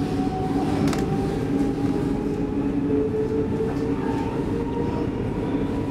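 X10 electric commuter train heard from inside the carriage while accelerating away from a station. Its motors whine with a slowly rising pitch over a steady rumble of the wheels on the track.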